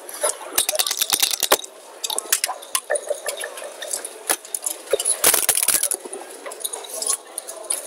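Backgammon play: checkers and dice clicking and clacking on the board, with a dense burst of rattling clicks about five seconds in as dice are shaken in a cup and thrown onto the board.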